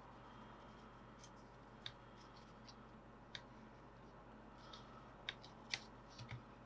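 Near silence with a few faint, scattered clicks of small plastic laptop parts being handled as its cooling fan and fan cable are worked loose.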